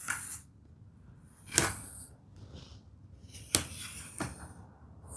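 Poplar boards being handled and set down on a workbench: about three sharp wooden knocks, with brief scraping between them.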